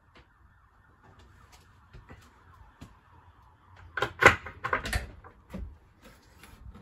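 Wooden closet door in a motorhome being opened, its latch and panel giving a quick cluster of knocks and clicks about four seconds in.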